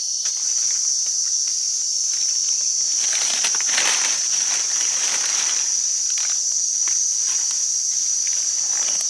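Steady high-pitched chorus of forest insects. Rustling and crunching in dry leaf litter comes in about three seconds in and lasts a couple of seconds.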